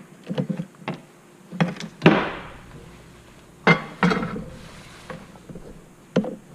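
A series of sharp knocks and clunks from objects being handled and set down on a hard work surface. The loudest strike comes about two seconds in and rings briefly, with another strong one a little under four seconds in.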